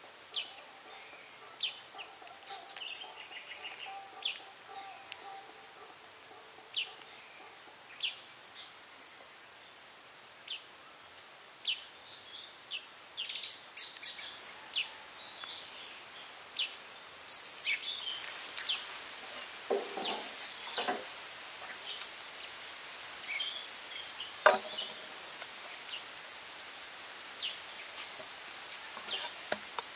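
Birds chirping now and then over outdoor forest ambience, with a steady hiss that grows a little past halfway and a few short knocks about two-thirds of the way in.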